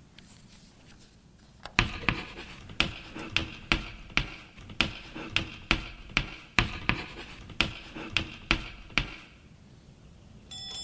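A run of sharp, irregular knocks, about three a second, starting a couple of seconds in and stopping about a second before the end.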